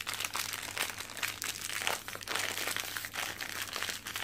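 Foil blind-box pouch crinkling and crackling as it is twisted and pulled open by hand, a dense unbroken run of crackles.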